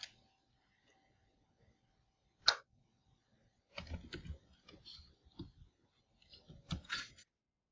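Computer keyboard keys clicking as a short word is typed, in quick clusters of keystrokes through the second half. A single sharp click about two and a half seconds in is the loudest sound.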